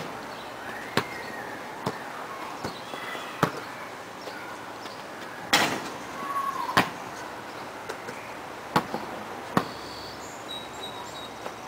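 Basketball thudding as it bounces on packed dirt and strikes the backboard and rim of a portable hoop during repeated shots: about a dozen sharp knocks at irregular intervals, the loudest a little past the middle.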